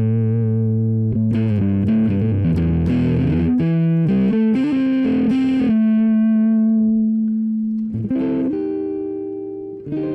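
Electric guitar, a Gibson SG with P90 pickups, played through a Kemper Profiler amp profile of a JTM-45-style amp, with a relatively clean tone just on the edge of breakup. Picked notes and chords ring out, one long held note dies away about eight seconds in, then new notes are struck.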